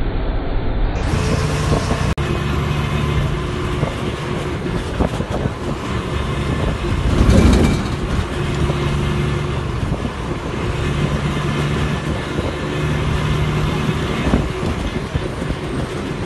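Steady noise of a moving road vehicle: an engine hum that comes and goes under rushing air, with a louder swell about halfway through.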